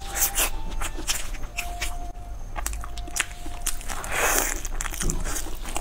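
Close-up eating sounds: biting and chewing crispy, sauce-coated fried food, a run of sharp crunchy crackles with a louder, longer crunch about four seconds in.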